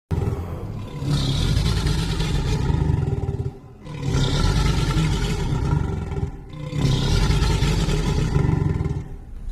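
Reconstructed dinosaur call: a deep, rough, roar-like call repeated three times, each lasting about three seconds.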